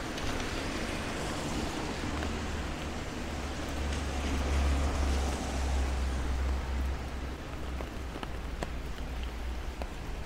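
Tyres hissing on a rain-soaked road as a van drives past, with a low rumble that is strongest in the middle and fades away, over steady rain. A few light clicks come near the end.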